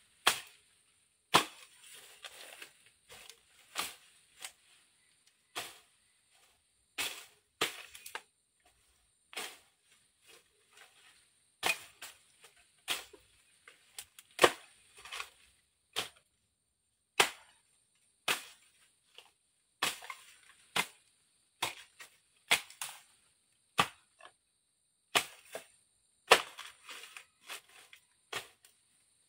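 Bolo (machete) slashing through grass and brush: sharp chopping whacks at an irregular pace, roughly one a second, some coming in quick pairs.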